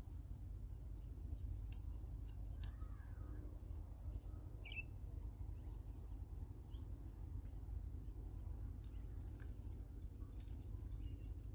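Outdoor grassland ambience: a steady low rumble with scattered faint clicks, and a few short bird chirps, one of them clearer about halfway through.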